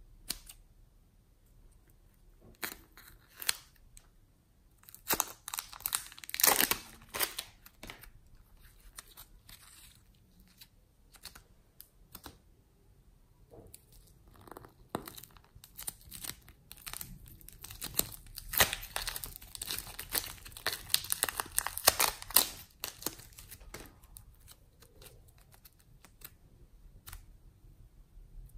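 Plastic piping bags filled with soft clay crinkling and crackling in the hands as the clay is squeezed out, with scattered crackles and two longer spells of dense crackle, about five seconds in and again about eighteen seconds in.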